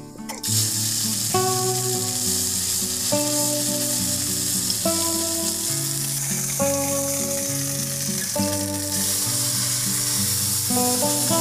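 Hot oil sizzling in a black iron karahi over a wood fire, starting suddenly about half a second in and running steadily on, under background music that plays a slow melody of held notes.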